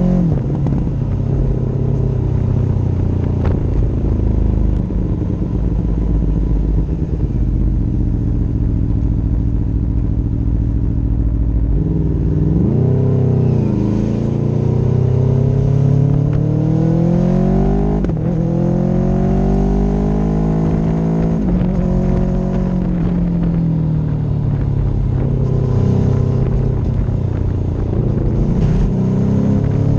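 Motorcycle engine heard from the rider's own bike on the move, its pitch repeatedly climbing under acceleration and dropping back at gear changes, over a steady rush of wind and road noise.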